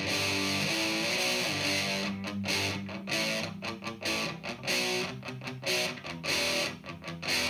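Les Paul-style electric guitar played through an Exar Super Fuzz SF02 fuzz pedal and amp: held fuzzy chords for about two seconds, then a choppy riff of short, stopped chords with brief gaps between them.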